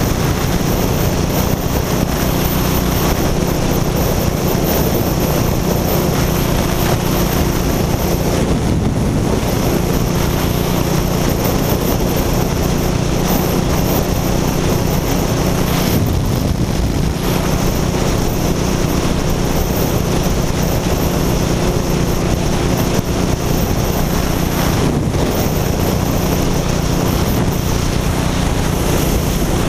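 Motorcycle engine running steadily while riding at speed, with wind rushing over the microphone. The wind noise eases briefly a few times.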